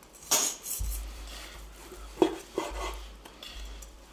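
Chef's knife slicing through a cooked beef filet steak and knocking against a wooden cutting board: a few short, separate cuts and taps, two of them close together about halfway through.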